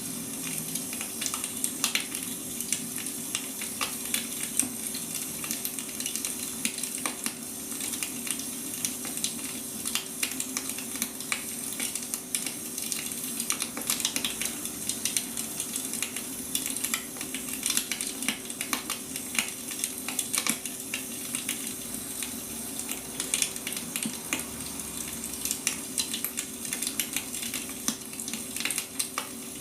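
Wood fire burning: frequent irregular pops and snaps from the firewood over a steady hiss, with a faint steady hum underneath.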